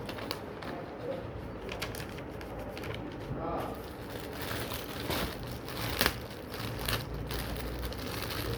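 Packaging crinkling and rustling as it is handled and opened. Irregular crackles grow denser from about four seconds in, with one sharp crack about six seconds in.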